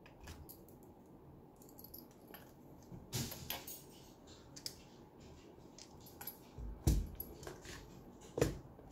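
Small plastic clicks, scrapes and knocks as the battery casing is worked loose from a JBL Charge 2 speaker's housing, with a few sharper knocks, the loudest a dull one about seven seconds in.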